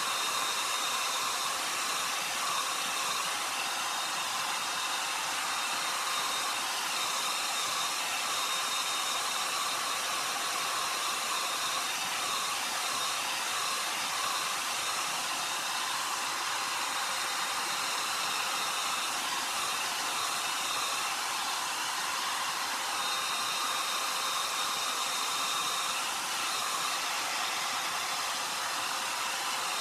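Handheld hair dryer blowing steadily, a rushing stream of air with a faint high whine, drying freshly brushed-on glass enamel.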